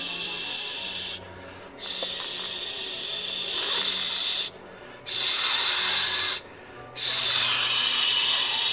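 A loud, steady hiss in four long stretches, each switching on and off abruptly, with gaps of about half a second between them.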